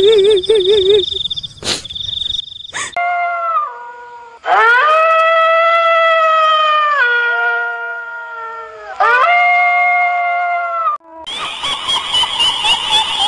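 Crickets trilling at first, then a dog howling: three long, drawn-out howls, each holding steady and stepping down in pitch before it breaks off. The insect trill comes back near the end.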